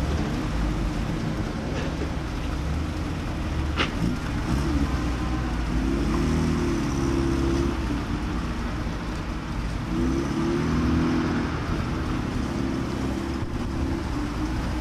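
Land Rover Series pickup's engine running under load as it churns through a muddy water pit, revving up and easing off twice, with water and mud sloshing around the wheels. A single sharp click about four seconds in.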